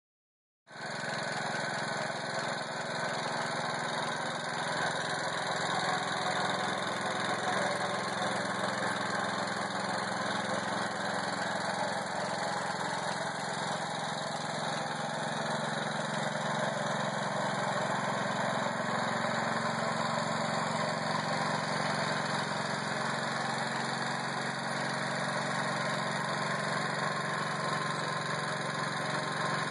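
1948 Baird Beaver garden tractor's small single-cylinder air-cooled engine idling steadily.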